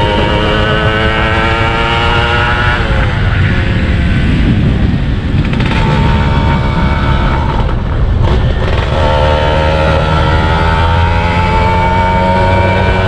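Yamaha F1ZR's 110cc two-stroke single-cylinder engine running on the move under throttle, its pitch climbing, then dropping about three seconds in as the throttle eases. A stretch of rushing noise follows, and from about nine seconds the engine's pitch climbs again.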